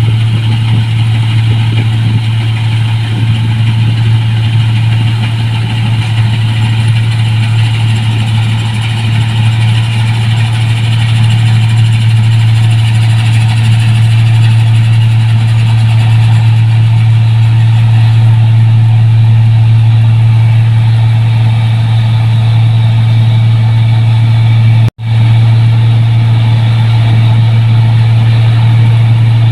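New Holland 1545 rice combine harvester running steadily: a loud, deep engine drone with a whir of machinery above it. The sound cuts out for an instant about 25 seconds in.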